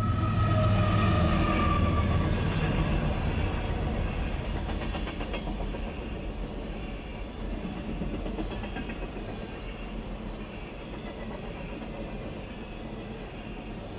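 Freight train passing close by: the CSX diesel locomotive's deep rumble is loudest in the first two seconds, with a high whine that slides slightly lower and fades. It then gives way to the steady rolling of loaded tank cars on the rails, with the clicking of wheels over the rail joints.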